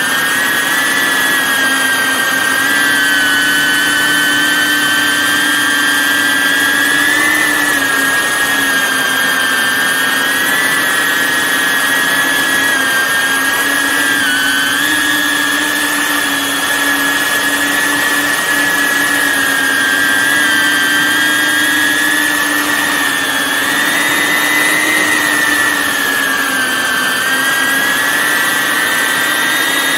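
Multirotor camera drone's motors and propellers whining steadily, the pitch wavering slightly up and down as it manoeuvres.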